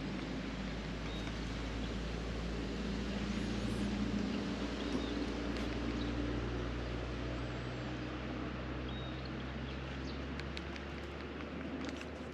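Small boat's motor running steadily with a low hum, while birds chirp faintly a few times.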